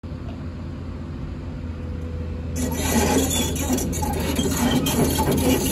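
Cat 320D hydraulic excavator's diesel engine running steadily, getting louder about two and a half seconds in as the machine travels, with clanking from its steel tracks.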